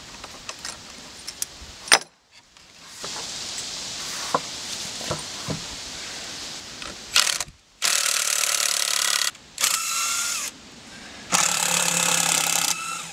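A cordless drill-driver backs out the screws holding the chainsaw-mill brackets to the log. It runs in three bursts of about a second and a half each, the middle one rising in pitch. Before them come a few light clicks and knocks of handling the metal brackets.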